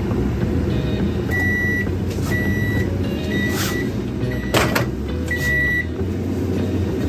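Contoure convection microwave oven beeping at the end of its bake timer: five short beeps at one pitch, about one a second, over a steady low hum. A sharp click comes about four and a half seconds in.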